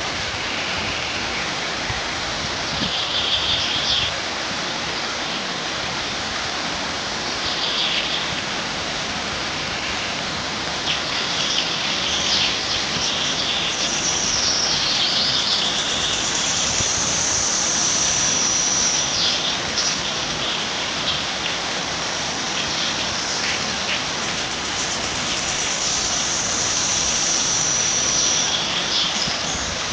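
Outdoor nature ambience: a steady rushing hiss with high-pitched bird calls over it, short calls every few seconds and two long, held whistles in the second half.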